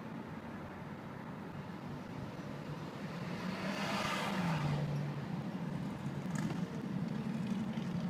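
Car engine and road noise heard from inside the cabin as the car rolls slowly along, a steady low hum. About four seconds in, a rushing sound swells and fades as a vehicle passes, and the engine hum dips in pitch for a moment.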